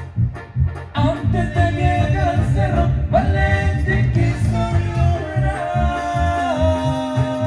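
Live Latin dance band playing, with a steady bass and drum beat; a sliding lead melody comes in about a second in.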